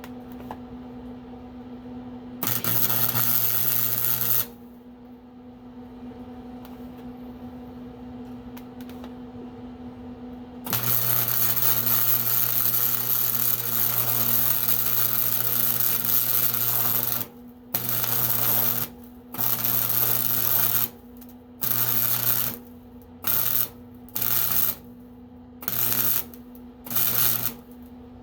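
Arc welding on quarter-inch steel plate in bursts: one short weld a couple of seconds in, a long run of about six seconds, then about seven short stitch welds in quick succession. A steady hum continues between the welds.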